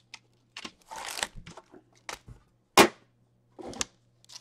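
Plastic wrapping crinkling and hockey card packs being handled, in short irregular crackles, with one sharp knock about two-thirds of the way through that is the loudest sound.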